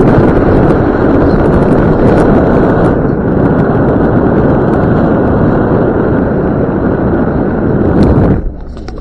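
Loud, steady rush of wind and road noise from a Land Rover Discovery 2 being driven along a paved road. It cuts off suddenly near the end.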